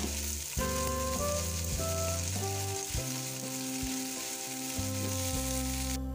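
Potato, eggplant and cauliflower pieces sizzling as they are dropped into hot oil in an aluminium pot. The sizzle cuts off suddenly near the end.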